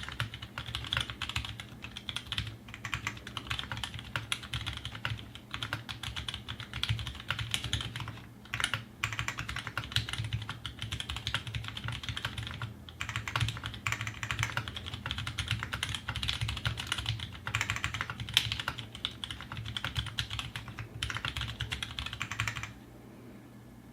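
Continuous fast typing on a custom 60% mechanical keyboard. It has an Aquaria case, an aluminium plate, GMK Laser keycaps and tactile Halo Ergo switches (Halo housings with Cherry MX Clear stems and 62g springs). The keystrokes come as a dense run of clacks with a few short pauses, and they stop near the end.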